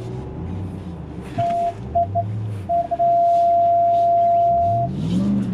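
Censor bleeps: a steady electronic beep cutting in and out, in a few short blips and then one held for about two seconds. Under the beeps is the low rumble of the Ram TRX's engine as it wades through the mud crossing.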